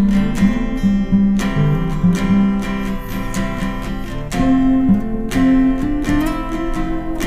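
Instrumental music led by acoustic guitar strumming chords, with changing notes and no singing.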